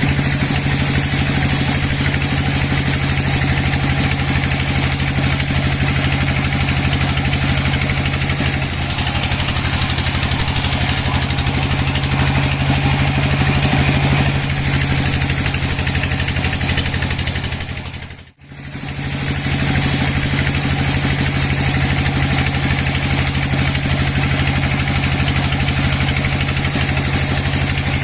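A sawmill's engine running steadily at constant speed with a low, even hum. It drops out for a split second about two-thirds of the way through, then carries on as before.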